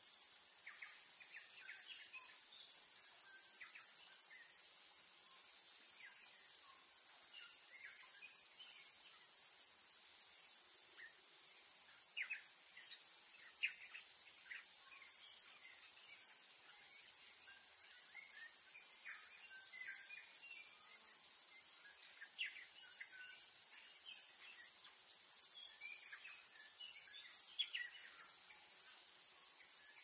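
Steady high-pitched chorus of insects, with short bird chirps and calls scattered throughout.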